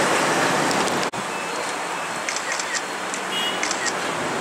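Steady outdoor background noise, an even rushing hiss, with a brief dropout about a second in and a few faint short chirps and light ticks in the second half.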